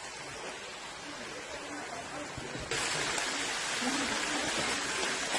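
Steady outdoor hiss of a near-dry riverbed with faint water noise. It jumps abruptly louder about halfway through, as at a cut between shots.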